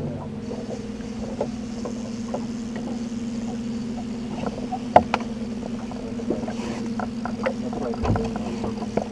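Boat motor running steadily at trolling speed, a constant low hum, with scattered light clicks and knocks on the boat and a sharper knock about five seconds in.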